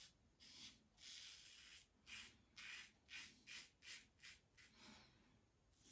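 King C Gillette double-edge safety razor with a BIC Astor blade scraping through lathered stubble in about a dozen short, faint strokes, quicker in the middle. The blade gives a bright ringing, a very hard cut, by which the shaver judges how sharp the blade is.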